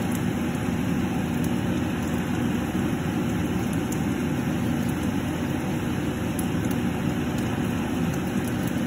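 A steady low hum of kitchen background noise, with faint scattered ticks from the braising sauce simmering in the pan.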